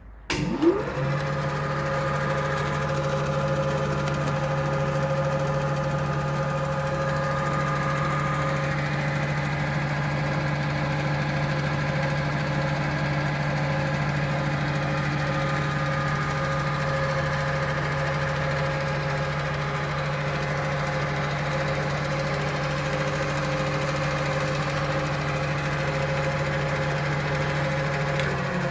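TOS MN 80A precision lathe starting up: the motor and spindle spin up within the first second, then run at a steady speed with a hum and several steady whining tones. The pitch begins to drop right at the end as it starts to slow.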